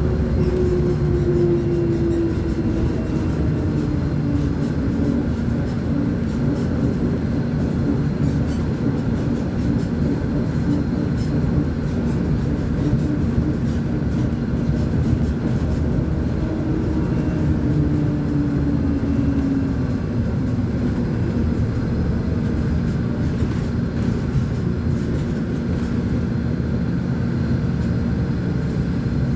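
Volvo B10M articulated bus's diesel engine running steadily, a low rumble with a higher tone that drops in pitch twice, around the second and about two-thirds of the way through.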